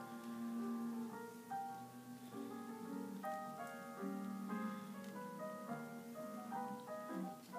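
Piano music playing, a run of changing notes.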